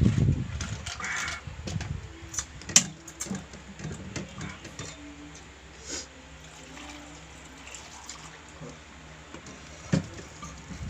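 Eating at a table: chewing and mouth sounds with scattered sharp clicks of tableware, the loudest about three seconds in and another near the end.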